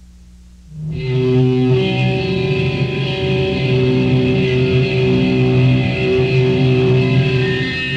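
Raw black metal recording: a low steady hum, then about a second in loud distorted electric guitar chords come in and ring on as a new passage starts.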